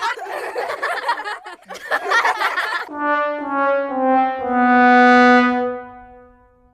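The 'sad trombone' comedy sound effect: four descending brass notes, wah-wah-wah-waaah, the last one held long and fading away. Before it there are a few seconds of a dense, noisy sound from another effect.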